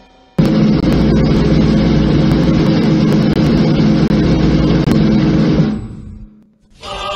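Loud, dense background music from a played video clip, starting abruptly about half a second in and fading out around six seconds; a different piece with chanting voices begins near the end.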